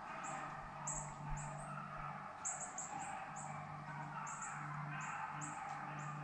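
Small birds chirping: a quick run of short, very high notes that each drop in pitch, several a second, over a faint low hum.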